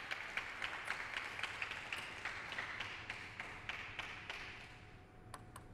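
Spectators applauding, fading away, with sharp clicks of a table tennis ball striking table and bats, coming more quickly near the end.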